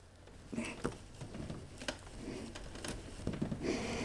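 Faint rustling with scattered light clicks and knocks, from network cables being handled behind a television.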